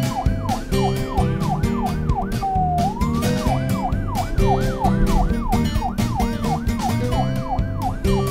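Emergency siren in a fast yelp, its pitch swooping up and down about three times a second, with a brief break about two and a half seconds in, over cheerful background music.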